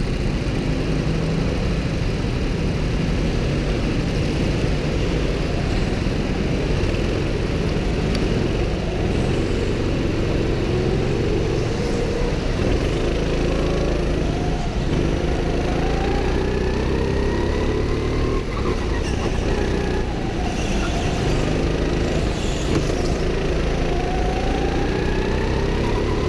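Go-kart engine heard from on board the kart. It runs steadily at first, then from about halfway its pitch rises again and again as the kart accelerates.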